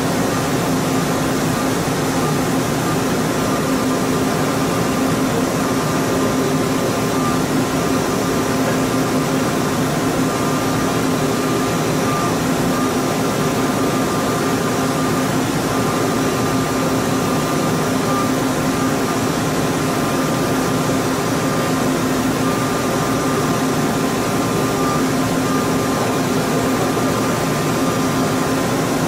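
CNC milling machine's spindle and small end mill cutting a metal mold cavity: a steady machine hum with a higher whine that comes and goes.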